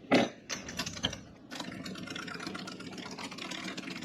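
A few knocks and clicks, the loudest right at the start, then a Vevor mini lathe starts up about a second and a half in and runs steadily.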